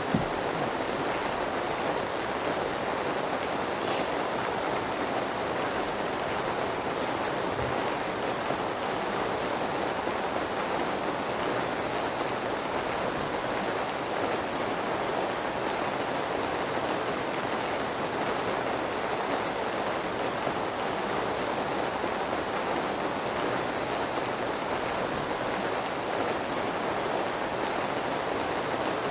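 Steady rain sound, an even rush that never breaks or changes.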